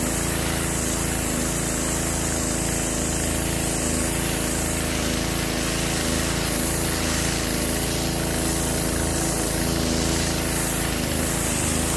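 Petrol pressure washer running steadily: the engine's even drone under the hiss of the high-pressure jet spraying onto concrete paving slabs. The newly fitted pump is back up to full pressure.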